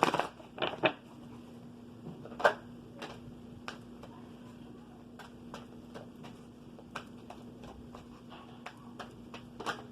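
A deck of oracle cards being shuffled and handled: a stream of light, irregular card taps and flicks, with a few louder knocks in the first second and one about two and a half seconds in.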